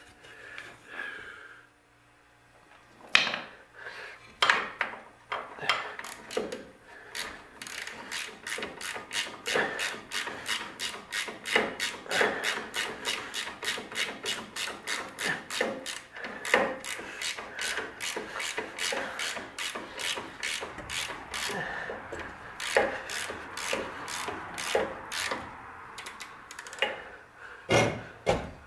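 Hand ratchet wrench clicking in quick, even strokes, about three a second, as a bolt is run in on a trailing arm mounting bracket.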